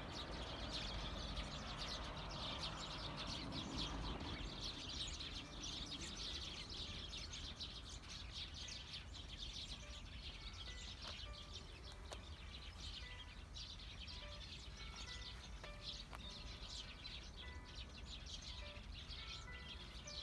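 Many small birds chirping and twittering in the bushes and trees, a dense high chatter that never lets up, over a low background rumble.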